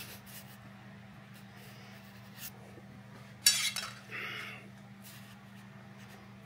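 A metal straight edge clattering once as it is set down, about three and a half seconds in, followed by a short softer scrape, over a steady low hum.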